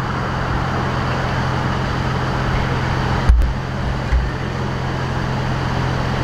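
Steady low hum of an idling vehicle engine over street traffic noise, with two brief low thumps a little past three and four seconds in.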